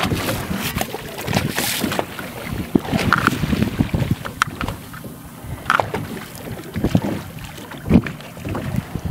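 Wind gusting on the microphone with choppy waves slapping and splashing against the side of a small fishing boat, uneven, with many short sharp splashes.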